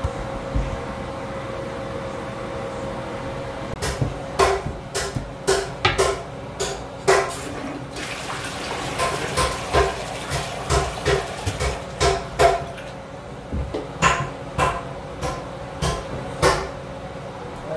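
A steady low hum, then from about four seconds in a run of irregular sharp knocks, one or two a second, each with a short ring.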